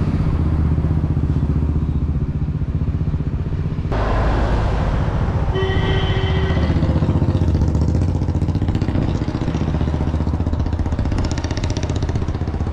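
Steady traffic noise with an engine running, and a brief one-second pitched tone like a horn about six seconds in.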